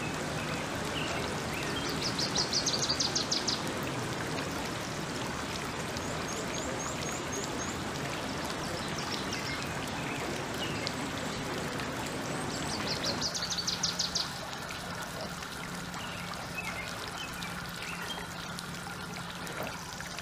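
Steady running water with birds calling over it: a fast high trill about two seconds in, a quick run of high chirps a few seconds later, and another fast trill about thirteen seconds in. After the second trill the water grows quieter, leaving a low steady hum underneath.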